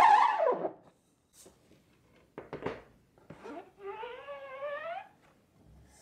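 Rubber squeegee blade squeaking as it is dragged through ink across the screen-printing mesh: a loud squeal sliding in pitch at the start, a few short knocks about two and a half seconds in, then a second, wavering squeal lasting about a second.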